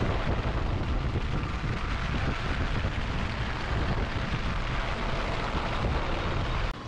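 Wind rumble on the microphone and wet-road noise from riding in an open auto-rickshaw under a tarp canopy. It is loud and even and cuts off sharply near the end.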